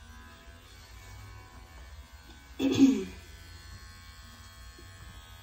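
Cordless electric dog clipper running with a steady buzz. A brief, louder voice-like sound with falling pitch cuts in about two and a half seconds in.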